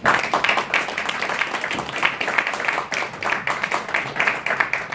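Audience applauding: many hands clapping together, starting suddenly and keeping up steadily.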